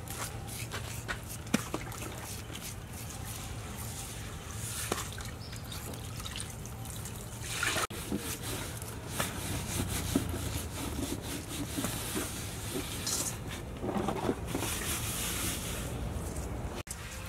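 Wet squelching and soft clicks of hands pressing a spice-and-herb stuffing into skinned frogs over a metal bowl.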